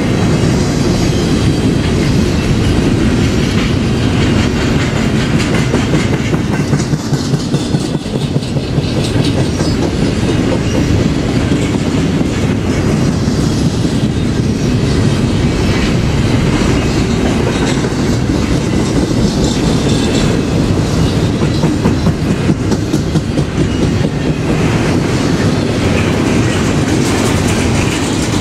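Double-stack container well cars of a freight train rolling past close by: a steady rumble of steel wheels on rail, laced with a rapid run of clicks as the wheelsets pass.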